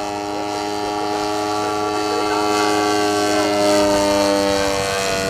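Engine and propeller of a radio-controlled scale model McDonald Fly Baby droning steadily in flight. It grows louder as the plane comes closer, and the pitch drops slightly near the end as it passes.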